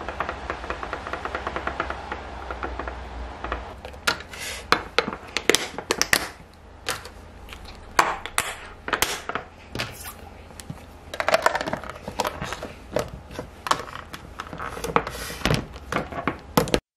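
A wooden chopstick stirs dressing in a small glass container with quick, even tapping and scraping. Then come a string of sharp clicks and knocks as the snap-lock lids of glass and plastic food containers are pressed shut and the containers are set down and stacked on a counter.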